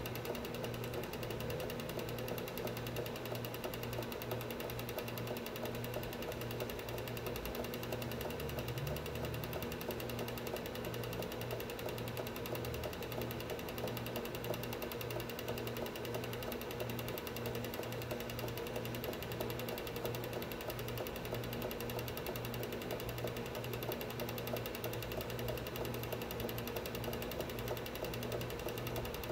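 Film projector running, its mechanism clattering in a rapid, even rhythm.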